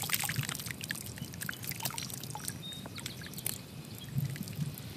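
Muddy water pouring and dripping off an AR-15 rifle as it is lifted out of a tub of mud and water, with many small splashes and drips back into the tub, thickest in the first second.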